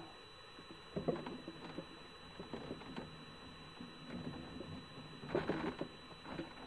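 Irregular knocks, taps and rustling of someone moving about and handling gear on a wooden raft deck, with a louder cluster of knocks about five and a half seconds in.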